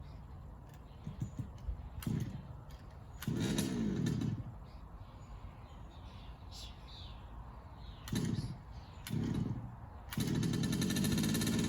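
Small two-stroke petrol engine of an HPI Baja 5B SS 1/5-scale RC buggy, its carburettor freshly rebuilt, being started: it fires briefly and dies several times, its pitch falling each time, then catches about ten seconds in and keeps running.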